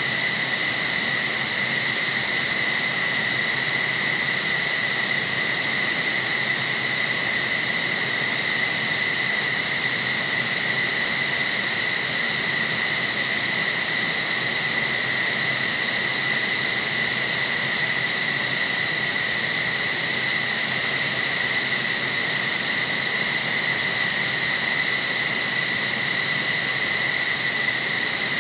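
F-15SG fighter jet running on the ground: a steady high-pitched whine over a constant rushing hiss, unchanging throughout.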